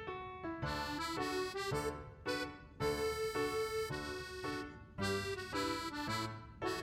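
Instrumental background music: a bouncy melody of short notes over a bass line, with one longer held note about midway.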